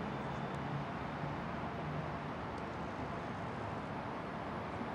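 Steady ambient background noise: an even hiss with a faint low hum underneath.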